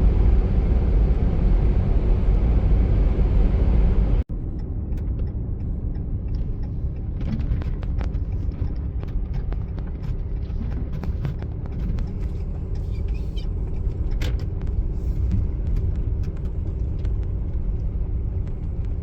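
Motor vehicle driving: a steady low road and engine rumble with wind noise. About four seconds in the sound cuts sharply to a quieter rumble with frequent small clicks and rattles.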